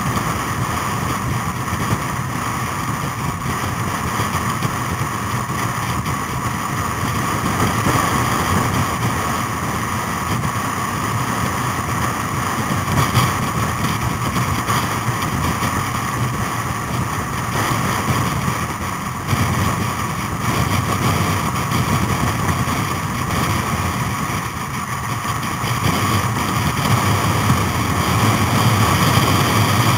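Motorcycle engine running at a steady road speed, mixed with wind rushing over the microphone.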